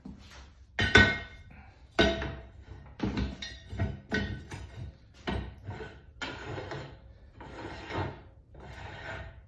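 Piece of steel pipe being set into the jaws of a welding positioner's chuck: irregular clunks and scraping of metal on metal, the sharpest knock about a second in.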